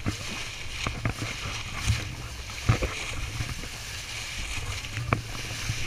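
Water rushing and splashing at the bow of a moving boat, over a low rumble, with a few brief sharp splashes or knocks.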